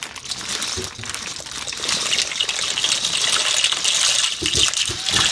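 Dry pasta shells pouring out of a plastic bag into a pot of boiling water: a rushing patter of shells dropping into the bubbling water, louder from about two seconds in, with a few low knocks near the end.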